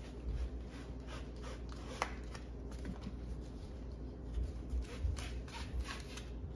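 Gloved hands handling and rubbing Schroth racing harness webbing, giving scattered rustles and soft knocks, with one sharp click about two seconds in. A steady low hum runs underneath.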